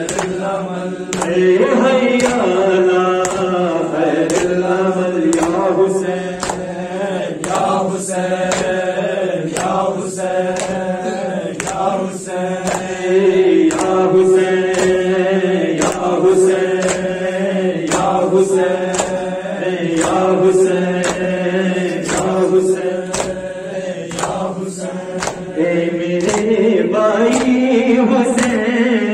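A male reciter chants an Urdu noha through a microphone. Behind the voice runs a steady beat of hand-on-chest slaps (matam) from the mourners, a little under two a second.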